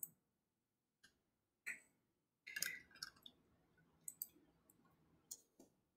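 A few faint, scattered computer mouse clicks over near silence.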